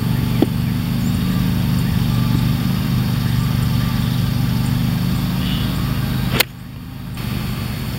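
A golf club strikes a ball once about six seconds in: a single sharp crack. A steady low mechanical hum, like a distant engine, runs underneath.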